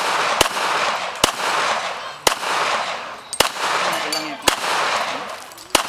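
Semi-automatic pistol firing six single shots, roughly one a second, each sharp crack trailing off in echo.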